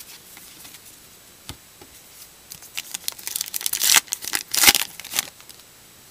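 Wrapper of a 2014 Topps Gypsy Queen card pack being torn open and crinkled: a run of crackling rips from about halfway through, loudest near the end, after a few faint clicks of cards being handled.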